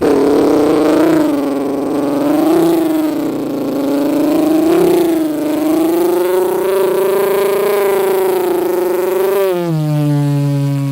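A man's voice imitating a revving engine: one continuous buzzing tone that swings up and down in pitch, then drops to a lower, steadier tone near the end.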